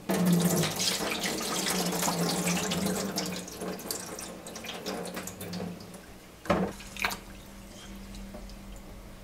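Cloudy rice-rinse water poured out of a clay donabe rice pot, splashing onto a stainless steel sink and dying away over about six seconds. Then two sharp knocks about half a second apart, and faint swishing of a hand stirring the rice in water.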